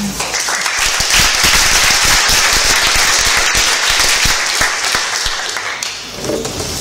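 Audience applauding, starting about half a second in and easing off near the end.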